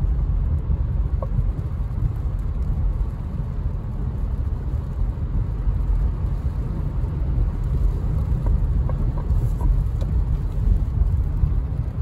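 Steady low rumble of a car driving on wet, slushy pavement in the rain, heard from inside the cabin, with the windshield wipers running.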